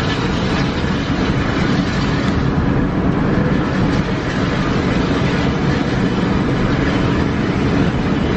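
Steady engine and tyre noise heard from inside the cab of a long-distance coach cruising on a highway.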